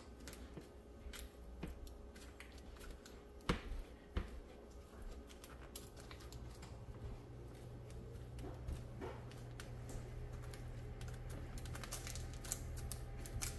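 Hands pressing and patting a crumbly buttery oat crumb base into a parchment-lined metal cookie sheet: faint, irregular soft clicks and crackles of oats and paper, with two sharper taps between three and four seconds in. A low steady hum comes in about six seconds in.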